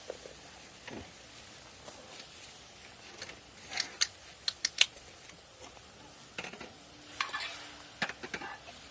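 Utensils and dishes clinking: scattered sharp taps of cutlery against pots and bowls, bunched together about four to five seconds in and again near the end.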